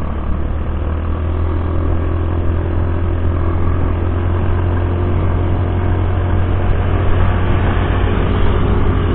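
Rusi Passion SC 125 scooter cruising at steady speed: a constant low rumble of engine, road and wind noise, heard from the rider's camera, swelling slightly toward the end.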